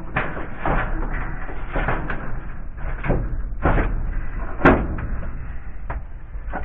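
A series of irregular knocks and clunks, one sharper and louder knock about two-thirds of the way through, over a steady low rumble.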